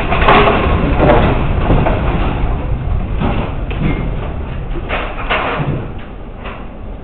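A continuous heavy rumble with repeated knocks and rattles: a house shaking in an earthquake.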